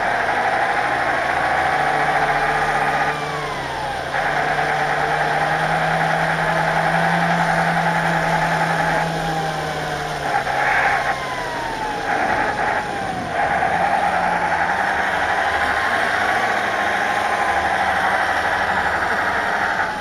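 An RC Tatra 130 model truck's sound unit plays a simulated air-cooled diesel V8 through the model's speaker, with howling cooling fans. The engine note and fan howl rise and fall with the throttle as the truck drives over rough ground, easing off briefly about three seconds in and again around ten to thirteen seconds in.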